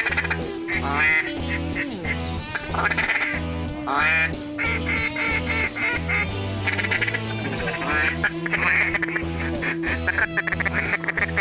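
Duck quacking in repeated runs of calls that step down in pitch, over background music with a steady bass beat.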